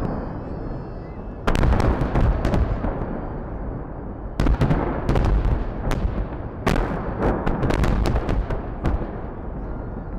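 Fireworks salute going off in volleys: clusters of sharp bangs come about one and a half, four and a half and nearly seven seconds in, with more just before the end, each followed by a rumble that dies away.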